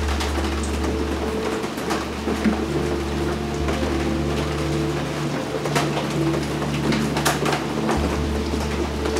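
Ambient background music: sustained low drone tones that shift pitch about a third of the way in and again near the end.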